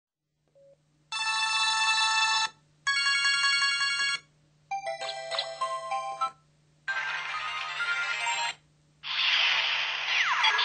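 LT6000 mobile phone ringtones played through the phone's speaker one after another. Five short samples of about a second and a half each are separated by brief gaps. They begin with pulsed electronic beeping tones, move to a short melody, and end with noisier effect sounds with sweeping tones.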